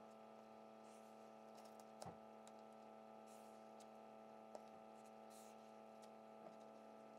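Near silence over a steady low hum, with faint scratchy strokes of a felt-tip marker drawn along a metal ruler on paper and a few light clicks about two seconds apart.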